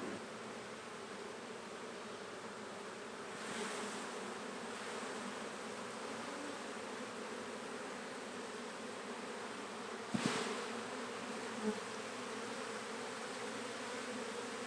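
Honey bees humming steadily from an open nuc box packed with a newly hived swarm. A brief rustle comes about three and a half seconds in, and a single sharp knock about ten seconds in.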